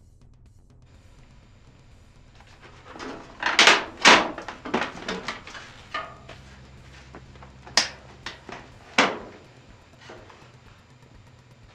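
Plasma TV's large perforated back cover being pulled loose, lifted off and set down. It gives a cluster of loud clattering knocks about three to five seconds in, then a few single knocks.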